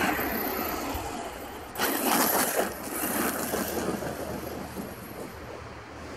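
HobbyKing Rattler RC short-course truck running on its Tacon 3660 3500kv brushless motor: two bursts of throttle, each with a high thin whine over a gritty rush of tyres churning sand and grit, then a quieter run as it moves off.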